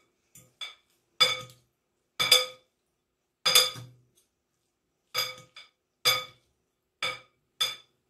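Two metal forks tossing rice noodles in a glass bowl, clinking against the glass about a dozen times at an uneven pace. Each clink rings briefly.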